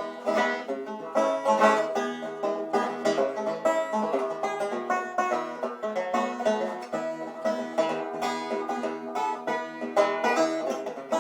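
Background music: fast plucked banjo picking in a bluegrass style.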